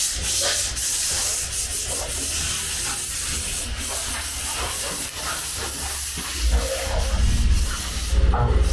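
Sanding on a car body panel: a steady abrasive hiss that starts abruptly, with a low rumble underneath that gets louder toward the end.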